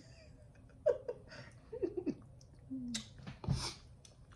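A toddler's short, high-pitched babbles and giggles, a few scattered sounds with pitch bending up and down, and a louder breathy noise about three and a half seconds in.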